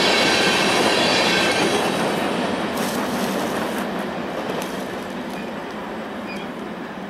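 Freight train cars rolling past on the rails, the wheels clattering with a faint high squeal. The noise fades steadily as the train draws away.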